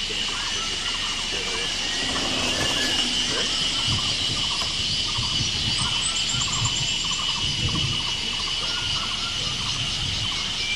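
Insects droning steadily at a high pitch, with a short chirping call repeated about twice a second and a faint murmur of distant voices.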